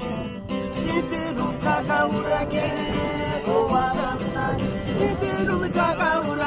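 A song with guitar accompaniment; a singing voice comes in about a second and a half in.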